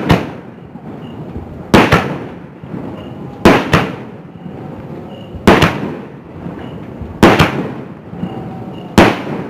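Aerial fireworks going off in a steady series of six loud bangs, about one every two seconds. Each bang is followed by a fading rumble of echo.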